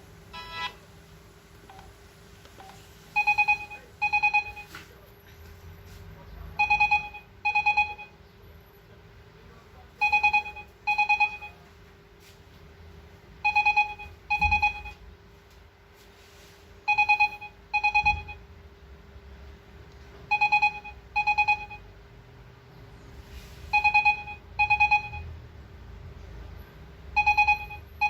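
LG KU950 mobile phone playing a ringtone through its loudspeaker: a double ring of two short pitched tones in quick succession, repeated eight times about every three and a half seconds. A brief rapid chirp comes less than a second in.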